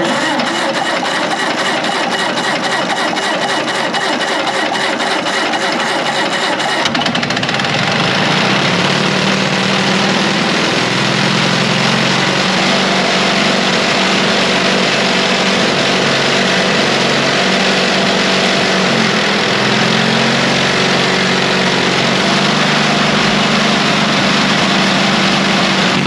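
Caterpillar D6 dozer's small gasoline pony (starting) engine starting up and running steadily. About seven seconds in the sound changes, becoming deeper and fuller.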